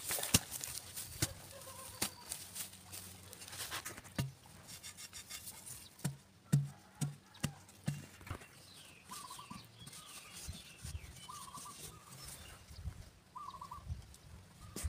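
Small hand digging hoe chopping and scraping into dry soil: a string of sharp knocks and scrapes, then a quick run of about four dull thumps. In the later part, short calls from an animal are heard three times, about two seconds apart.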